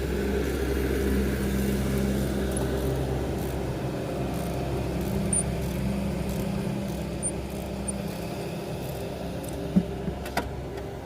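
A steady low, engine-like hum, with a few sharp clicks near the end.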